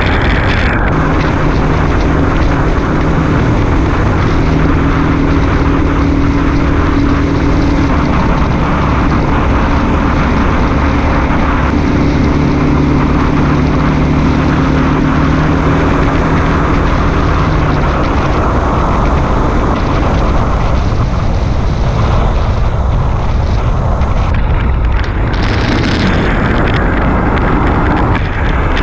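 Motorcycle engine running at a steady cruising speed, with heavy wind rushing over the microphone. The engine's hum holds steady for the first half or so, then sinks under the wind noise.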